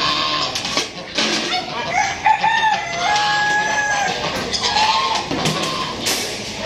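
Roosters crowing over a chorus of clucking chickens, one long crow about two to four seconds in standing out above the rest.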